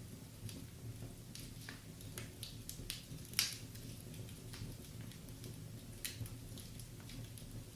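Wood fire crackling in a fireplace: irregular snaps and pops, the loudest about three and a half seconds in, over a steady low hum.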